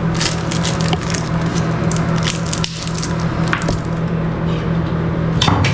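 Bathroom exhaust fan running with a steady low hum, over small clicks and crinkling from handling a little plastic bag of screws.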